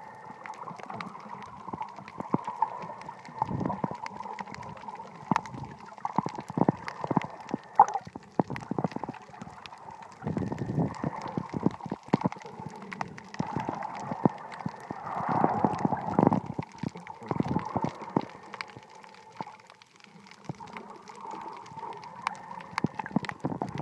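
Underwater sound: water sloshing and gurgling around a submerged camera, with many scattered clicks and crackles. There are louder swells a few times, at about 3.5, 6.5, 10.5 and 15–16.5 s.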